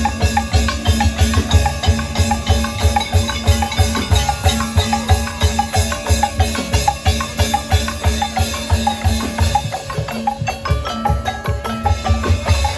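Band music with a steady, driving drum beat and pitched percussion playing a repeating melody.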